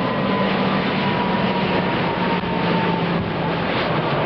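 Airbus airliner's jet engines running loudly, a steady rushing noise with a whine that slowly falls in pitch and fades about three seconds in.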